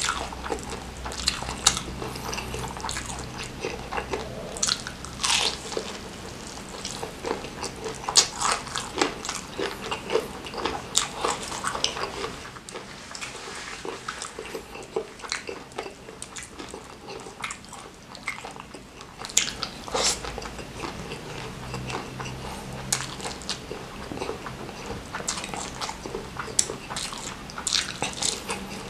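Crunching bites and chewing of crispy fried chicken topped with crushed chillies, a run of sharp crackly crunches with a quieter stretch in the middle; near the end, mouthfuls of fried noodles.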